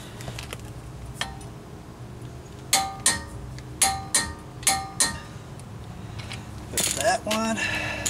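Click-type torque wrench set to 100 pounds clicking over on a wheel-spacer lug nut: six sharp metallic clicks in three pairs, each pair about a third of a second apart. Each click is the sign that the nut has reached the set torque.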